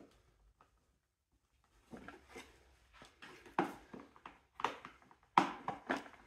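Irregular clicks and knocks of plastic pressure-washer parts and a screwdriver being handled while a screw is fitted. The first couple of seconds are nearly silent, then the clatter starts, with its loudest knock about five seconds in.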